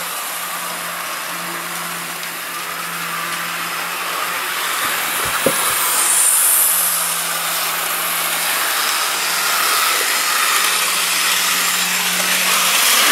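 Electric model trains running on sectional track: a steady whirring rattle of the small locomotive motors and wheels over a steady low hum, a little louder from about four seconds in, with a single sharp click about five seconds in.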